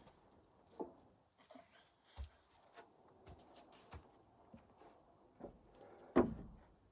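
Scattered light knocks and clicks, with a louder thump about six seconds in.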